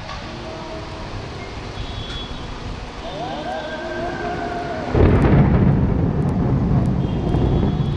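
A thunderclap breaks suddenly about five seconds in and rolls on as a loud, low rumble. It comes about five seconds after a lightning flash, which puts the strike roughly 1.5 to 2 km away.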